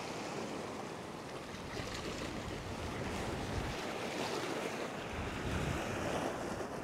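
Ocean surf surging and washing over the rocks of a rock shelf, a steady rushing wash.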